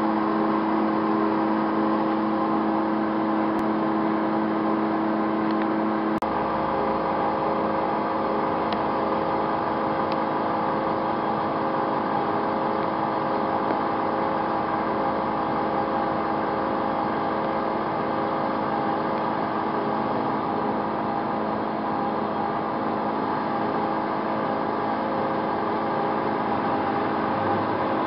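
Hyd-Mech H-12A horizontal band saw running through a cut, its motor and blade drive giving a steady mechanical hum with several held tones. About six seconds in, the pitch mix shifts: two of the tones drop away and a low hum comes in.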